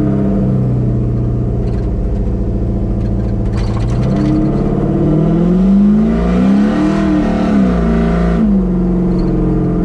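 Chevy C10 truck's swapped 5.3-litre LS V8 with an aftermarket cam, running steadily on the road, then revving up under acceleration about five seconds in and dropping back in pitch about two seconds later before settling.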